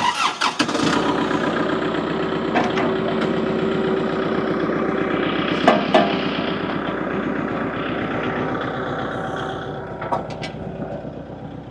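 Tractor engine starting up about half a second in, then running steadily, with a few clicks and knocks over it; it eases a little quieter near the end.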